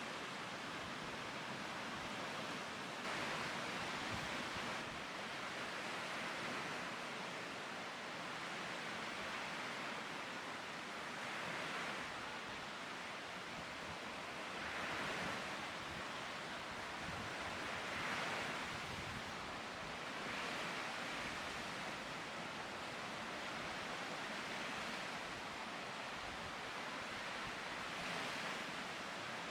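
Lake waves washing onto the shore: a steady rush of water that swells and eases every few seconds as waves come in.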